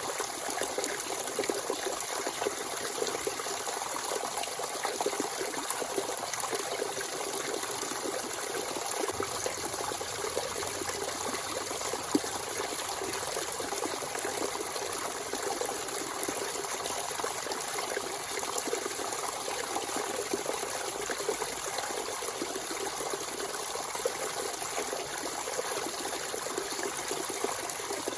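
Natural spring water running and trickling freely, a steady splashing flow.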